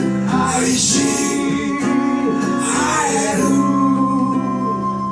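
Live acoustic band: a man singing lead over two strummed acoustic guitars, with a steady high held note alongside. The singing stops about three and a half seconds in while the guitars ring on.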